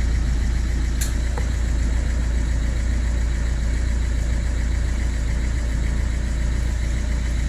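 Ford C-Max diesel engine idling steadily, just after it has started following clearing of its immobiliser fault codes, with one brief click about a second in.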